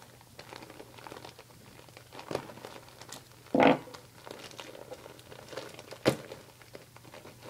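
Package wrapping being cut and torn open by hand: scattered crinkling and tearing, with a louder crinkle about halfway through and a sharp click near the end.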